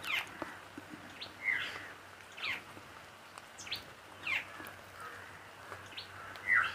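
Birds chirping: a series of short calls sliding downward in pitch, about one a second, the loudest near the end.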